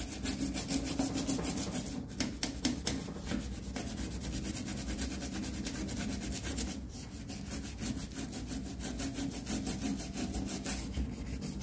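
Toothbrush scrubbing a wet, soapy stainless-steel gas stove top around a burner's base, in rapid back-and-forth strokes.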